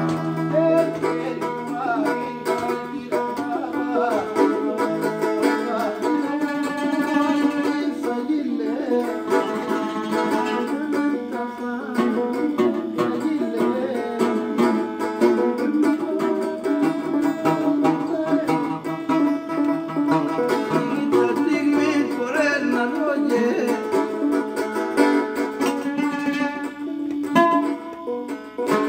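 Nubian song played on a tanbur lyre and an oud, with plucked string accompaniment and male vocals.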